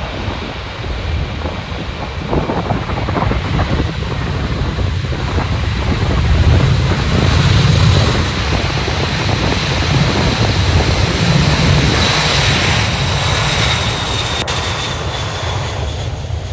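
Eight turbofan engines of a B-52H Stratofortress running at high thrust as the bomber rolls down the runway: a deep rumble with a high whine on top, building to its loudest about seven seconds in and easing a little near the end.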